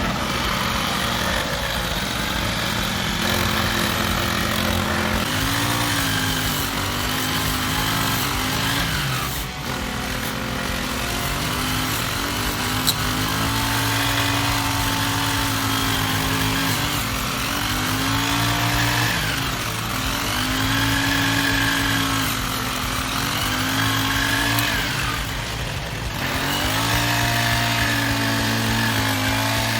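Maruka MRK-55D push grass cutter's 35.8cc four-stroke petrol engine running at high speed. Its pitch sags and recovers several times.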